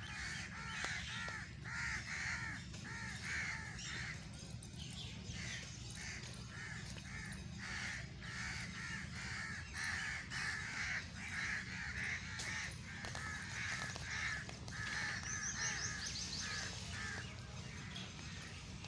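Crows cawing over and over, a few harsh calls a second, with short high bird chirps near the start and again near the end, over a low steady rumble.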